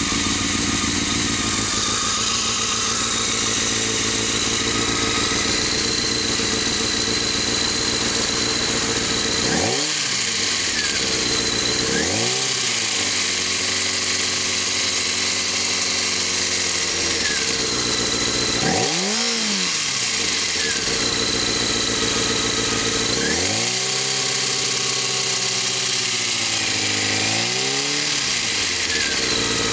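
Honda CBR600F4i's inline-four engine idling, then revved several times, with stretches held at raised revs. A rattling noise comes in from about 2,000 rpm up, and the owner does not know its cause.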